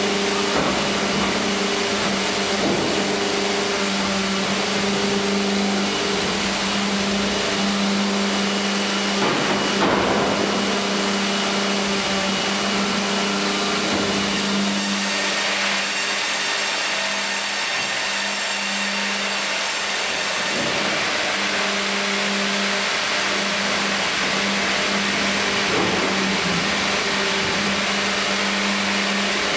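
Fimaksan Fi.120 tandem band saw line running, with a steady machine hum as a log is fed through the saw heads on the conveyor. About halfway through, a higher hiss rises for several seconds while the blades cut.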